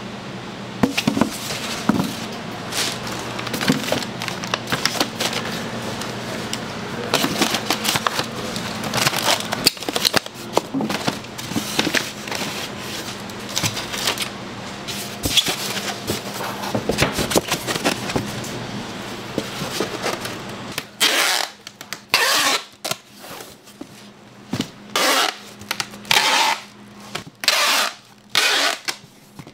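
Cooking work at a hotteok griddle: frequent scrapes and knocks over a steady hum. About two-thirds of the way through, the hum stops and a string of short, separate scratchy noises follows.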